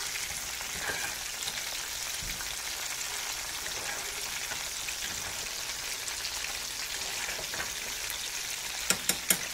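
Breaded catfish nuggets sizzling steadily in hot oil in a cast-iron skillet. Near the end there are a few sharp clicks of metal tongs.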